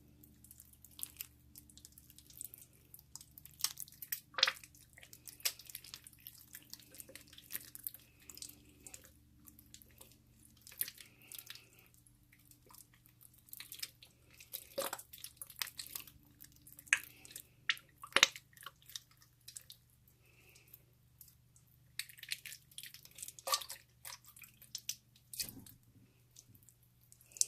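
Slime being mixed: irregular sticky squelches, small wet pops and clicks, with a faint steady hum underneath.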